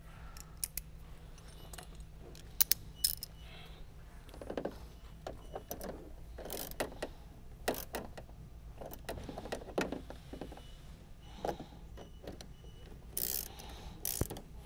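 Ratchet and 10 mm socket tightening headlight mounting screws, clicking in short irregular runs, with small clinks of hand tools.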